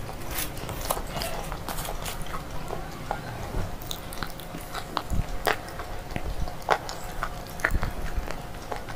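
Crunching of a slate bar being bitten and chewed close to the microphone: irregular sharp crackles, several a second.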